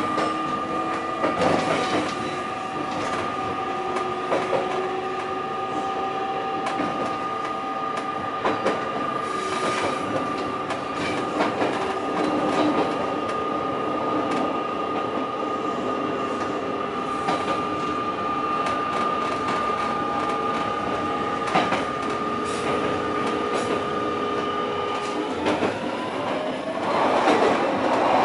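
JR Kyushu 817-series electric train running, heard inside the cab: a steady high-pitched squeal from the wheels on curving track, with scattered clicks from the rail joints. A louder rushing noise swells near the end.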